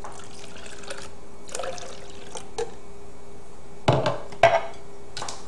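Blended green juice poured from a blender cup into a bowl, a faint splashing pour. About four seconds in come two loud knocks of the cup, half a second apart.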